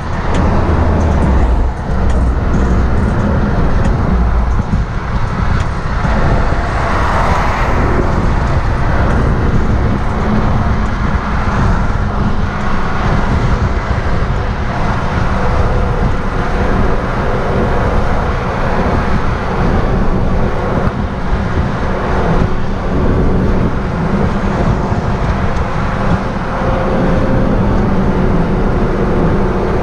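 Toyota Aristo being driven, with a steady loud rumble of engine and road noise and a wash of noise over it.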